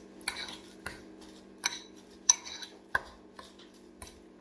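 Metal fork stirring and mashing fresh goat cheese in a ceramic bowl, with irregular clinks and scrapes of the tines against the bowl. The sharpest clink comes a little past halfway.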